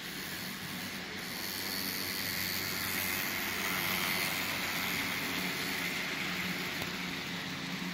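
Model train running on its track: a steady hum of the motor and wheels on the rails, growing louder as the cars pass close by in the middle.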